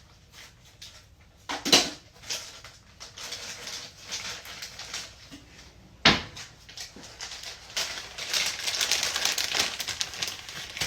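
Packaging being handled and opened: crinkling and rustling of plastic wrap, with two sharp knocks, one about two seconds in and one about six seconds in, and a denser stretch of crinkling near the end.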